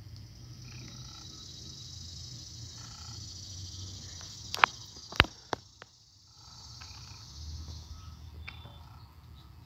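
Steady high insect buzzing that fades out about a second before the end. About halfway through come three or four sharp clicks, with low rubbing noise from the phone pressed against skin and clothing.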